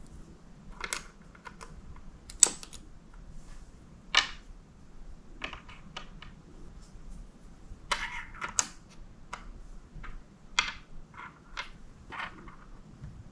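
Small plastic miniature pieces clicking and tapping as they are picked up and set down on a wooden tabletop, in irregular clusters, with a sharp click about two and a half seconds in.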